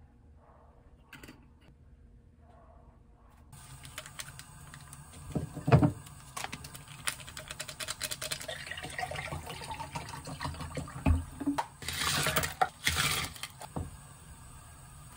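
Ice and cold water going into a tall drinking glass: clinks and knocks of ice against glass starting about three and a half seconds in, with water pouring, louder near the end.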